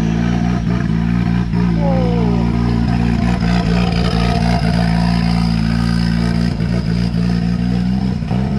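A motor vehicle engine running loudly and steadily.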